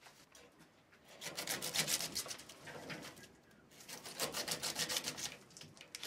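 Bundles of dry broomcorn straw rustling and rubbing as they are handled, in two bursts of quick, dense scratching: one about a second in, another about four seconds in.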